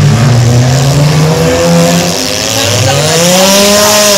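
Several derby cars' engines revving hard. One climbs in pitch about two-thirds of the way through and eases off at the end, over a steady hiss of tires and crowd.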